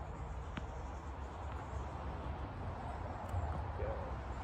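Outdoor court background of steady low rumble and hiss, with one light tap about half a second in as the just-served tennis ball bounces on the hard court. A short bird call comes near the end.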